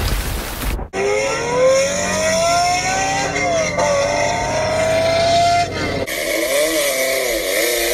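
A car engine accelerating hard, its pitch climbing steadily, dipping once about four seconds in and climbing again, then revving up and down unevenly near the end. It is preceded by a brief rushing water noise about the first second.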